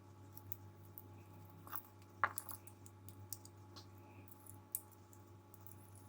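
Small, sparse metal clicks and taps as a spool pin is worked into a pin chamber of a euro lock cylinder with small tools, with one sharper click about two seconds in.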